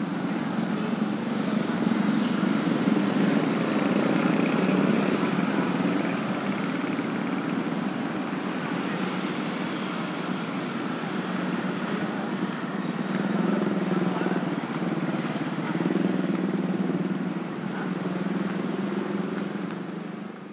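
Busy street traffic of small motor scooters passing close by, their engines swelling and fading one after another over a steady traffic hum.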